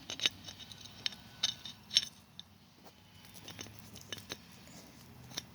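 Light metallic clinks and rattles of a timing chain and its loose cam gear being handled as the gear is fitted into the chain, with a few sharper clicks in the first two seconds.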